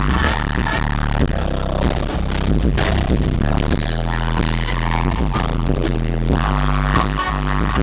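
Live band music recorded through a Flip Video camcorder's built-in microphone, with poor sound quality: steady bass notes under repeated drum hits.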